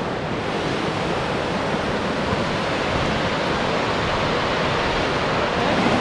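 Steady rushing of a mountain creek near a waterfall, an even wash of water noise that grows a little louder toward the end.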